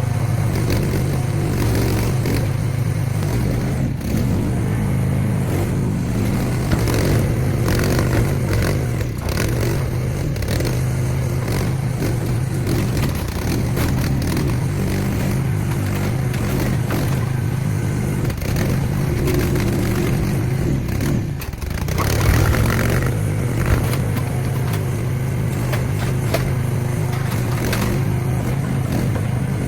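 Mini excavator engine running steadily under work, with intermittent metal scraping and knocks from scrap air-conditioning units being handled. The level briefly drops and then rises for a few seconds about two-thirds of the way in.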